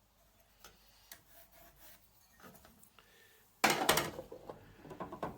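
Light rubbing and small taps of timber blocks being handled and marked, then about three and a half seconds in a sudden loud clatter of knocks as the wooden 5x2 offcuts are set down and moved.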